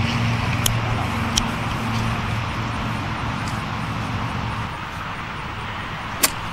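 Steady low engine hum that eases off about two-thirds through, then a single sharp click near the end as a golf club strikes the ball.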